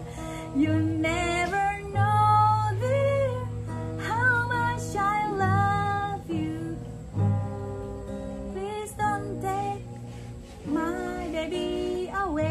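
Acoustic guitar strummed under a woman's voice singing a melody in long held notes, in three phrases.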